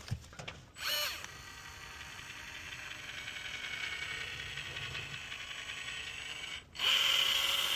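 Caulk gun pushing Prosoco R-Guard Joint & Seam Filler out of a tube: a steady mechanical sound starting about a second in, cutting off briefly near the end, then a shorter, louder stretch.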